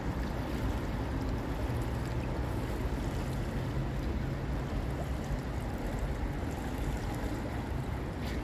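Steady low rushing rumble of the high, fast-flowing Mosel floodwater, with a faint low hum for a few seconds in the middle.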